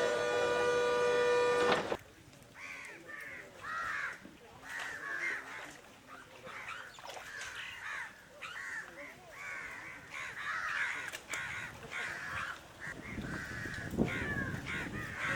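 A horn holds one steady note for about the first two seconds, then cuts off. After it, many crows caw over and over with overlapping calls.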